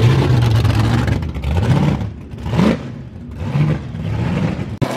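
Modified car engines, including a big supercharged V8, running at low revs with a quick rev about halfway through.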